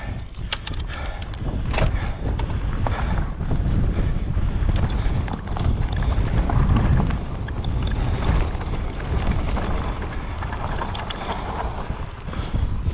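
Wind buffeting the camera's microphone, a steady rumble throughout, with a handful of sharp clicks from about half a second to two seconds in.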